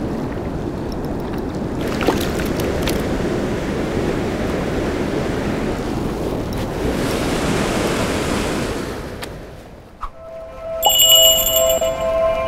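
Steady rush of river water pouring over rapids, fading out about nine seconds in. Near the end a short music jingle with bright ringing tones starts.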